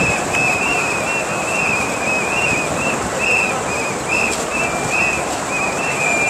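A whistle blown in short, even blasts, about three a second, over the steady background noise of a crowd.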